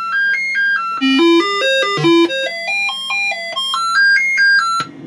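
Commodore 64 SID sound chip playing a tune of quick stepping electronic notes in rising and falling runs, over a steady low hum; it stops abruptly near the end. The owner judges the playback still glitchy, the sign of a bad SID chip.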